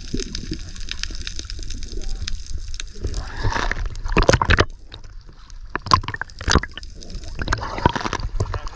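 Water heard through a camera just below the surface, muffled, then about three seconds in the camera comes up and small waves slosh and splash against it in irregular bursts.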